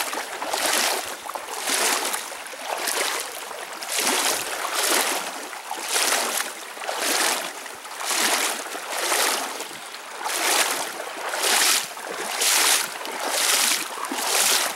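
Canoe paddle strokes splashing and swishing in a shallow creek, about one stroke a second, over the steady rippling of the current.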